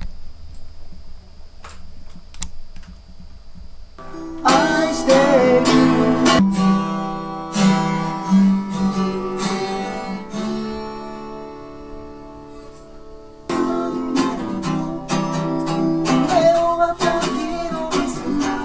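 Acoustic steel-string guitar, picked and strummed, starting about four seconds in, with a voice singing along in places. Before it, faint room sound with a couple of light clicks and a thin high whine.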